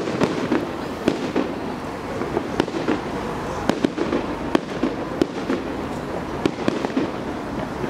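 Fireworks display: aerial shells bursting in an irregular run of sharp bangs, about two a second.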